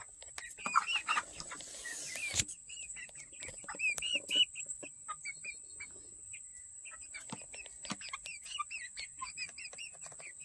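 A flock of young Red Star hens peeping and clucking softly: many short, high calls all through. There is a rustle that ends in a sharp knock about two seconds in.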